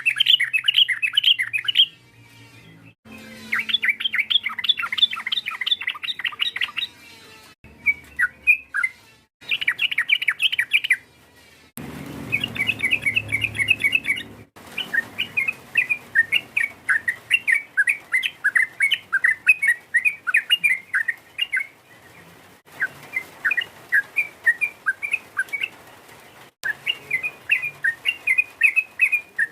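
Yellow-vented bulbul calling: fast, bubbly runs of chattering notes in phrases of a few seconds each, broken by short pauses. The phrases are spliced together as a lure call.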